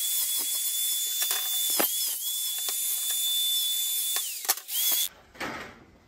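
Angle grinder smoothing the sharp cut edge of a steel pedal-assembly bracket: a steady high whine with a dense grinding hiss, its pitch dipping briefly a few times. Near the end the whine sags, picks up for a moment and cuts off about five seconds in.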